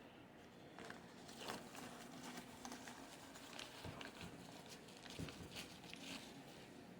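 Faint crinkling and scattered small clicks of a paper sandwich wrapper being handled and opened, over about five seconds.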